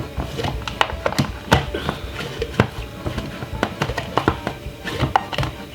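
Background music with irregular light clicks and taps, the sound of a blender jar and its lid being handled and put in place before blending.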